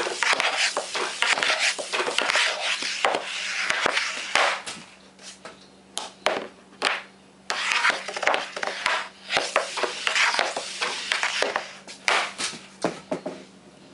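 Hockey stick blade scraping and sliding across a melamine shooting board as pucks are stickhandled, with a string of sharp clacks as pucks are struck by the blade and hit the stacked pucks.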